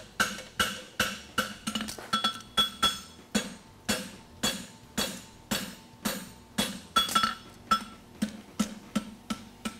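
Hand hammer striking a red-hot steel horseshoe bar on an anvil, a steady rhythm of about three blows a second, each with a short metallic ring. The farrier is forging the heel of the shoe hot.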